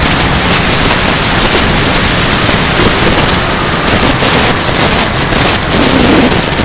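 Steady loud rush of wind over the onboard camera's microphone on an RC model aircraft in flight, with a high thin whine from its motor and propeller.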